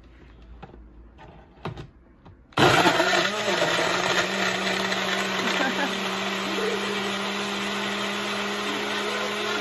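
Countertop blender blending a smoothie: after a few faint clicks it switches on suddenly about two and a half seconds in and runs loud and steady, a dense whir over a constant motor hum.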